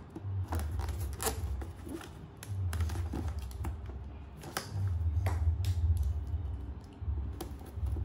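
Fingernails scratching and picking at clear sticky tape on a cardboard box, irregular clicks and scrapes with dull handling knocks as the box is turned in the hands.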